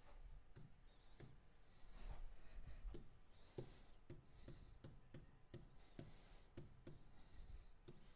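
A dozen or more faint, irregular mouse clicks as the keys of an on-screen TI-83 Plus calculator emulator are pressed to enter a calculation.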